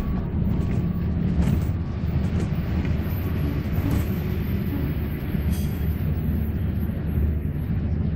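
City bus running along the road, heard from inside its cabin: a steady low engine and road rumble with a few light clicks.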